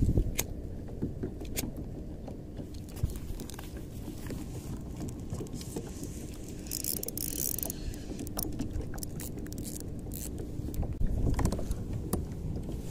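Scattered clicks and knocks from a plastic fishing kayak and its gear as it is paddled and turned on choppy water, with a brief hiss about seven seconds in and a low rumble near the end.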